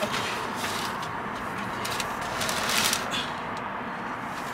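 Large cardboard flat-pack box sliding and scraping into a car boot, with rustling and light knocks, loudest a little past the middle.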